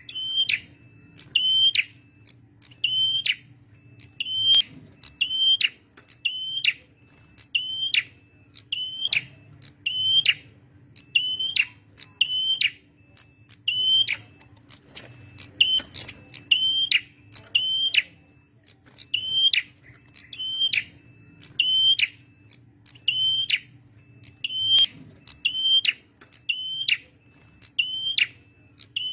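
Male prenjak merah (a small Indonesian prinia-type warbler) calling insistently: one sharp, high chirp repeated over and over, about one every 0.8 seconds, with a faint steady hum underneath.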